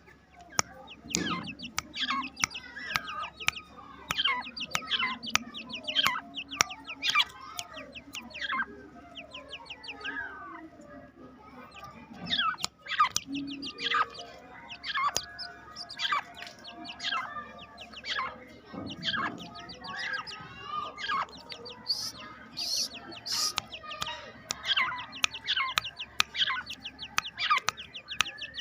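Two-month-old Irani teetar (partridge) chicks calling: a dense, continuous chatter of short, sharp chirps, many of them dropping in pitch, several a second, with a few higher, shriller calls a little after two-thirds of the way through.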